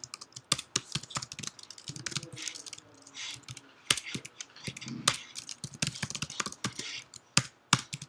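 Typing on a computer keyboard: irregular bursts of key clicks as a line of code is entered.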